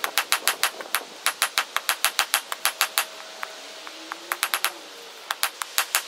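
Hand hammer striking hot wrought iron and 1084 steel on an anvil: quick, even blows, about six a second. After about three seconds the hammering stops for about a second, then comes back in a short flurry and resumes near the end.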